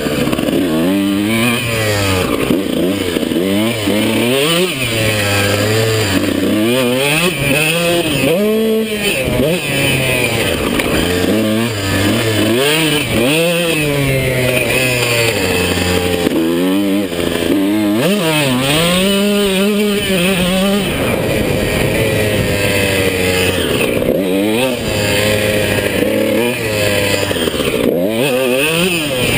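Dirt bike engine revving up and down over and over, its pitch climbing and dropping every second or two as the throttle is opened and closed.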